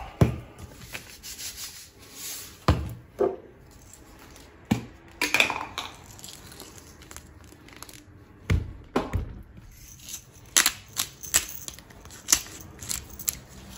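Kitchen handling noises while raw chicken is salted on a wooden cutting board: scattered clicks and knocks from containers and rustling of plastic, with a run of quick clicks near the end.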